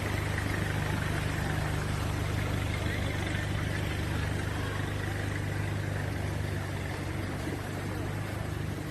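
An engine running steadily at constant speed, a low even hum over a rushing hiss.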